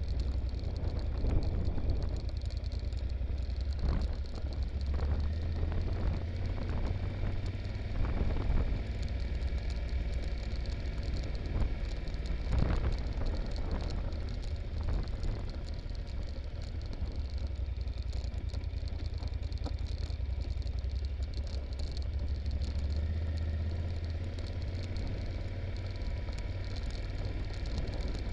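Yamaha Super Ténéré parallel-twin engine running at low road speed on a rough descent, with the bike knocking and rattling over rocks and ruts a few times.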